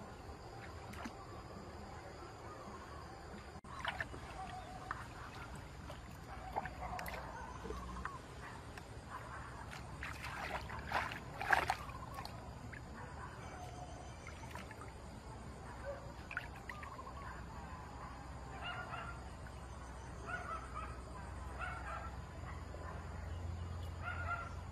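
Water splashing and sloshing as hands grope inside a bamboo plunge-basket fish trap in shallow muddy water, loudest about ten to twelve seconds in. In the last several seconds, short bird calls repeat one after another.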